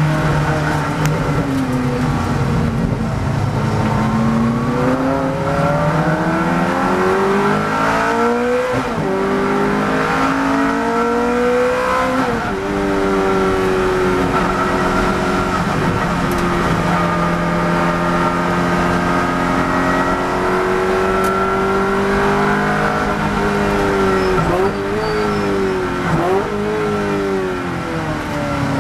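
Ferrari 430 GT3's V8 heard from inside the cockpit at race pace. The note falls as the car slows into a corner, then climbs hard under acceleration with upshifts about nine and twelve seconds in, and holds high through a fast stretch. Near the end it drops with quick throttle blips on the downshifts under braking.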